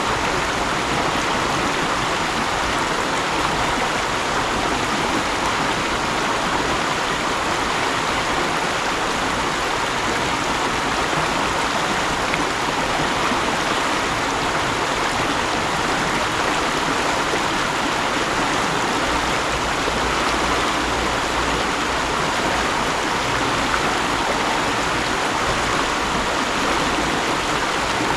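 Mountain stream flowing, a steady rush of running water.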